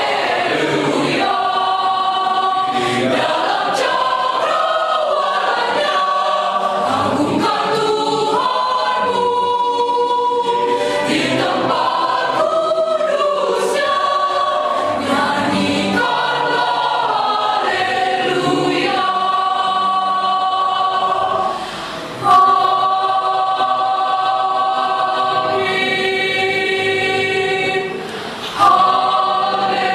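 Mixed choir of young men and women singing together, breaking off briefly twice between phrases, once about two-thirds of the way through and again near the end.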